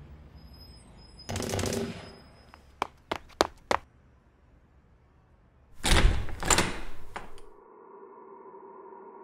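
Dubbed sound effects: a short thud, then a quick run of four or five sharp knocks, then a loud, noisy door sound about six seconds in, lasting a second and a half. It gives way to a steady drone of held musical tones.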